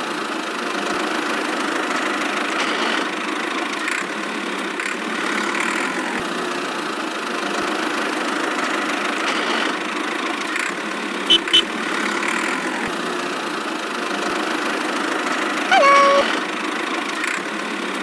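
Steady engine running sound, like a small tractor engine at idle. Two quick clicks come about two-thirds through, and a short high-pitched squeak sounds near the end.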